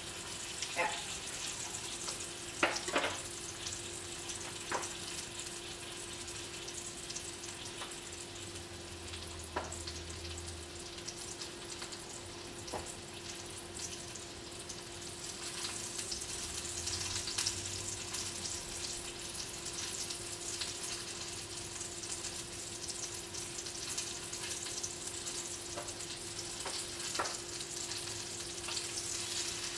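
Mahi mahi fillets frying in a pan, a steady sizzle and crackle, with a few light taps of a utensil against the pan.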